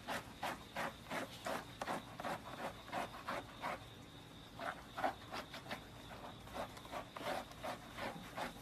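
A rubber grooming brush scrubbing a dog's wet, soapy coat in quick back-and-forth strokes, about three a second, with a short lull near the middle.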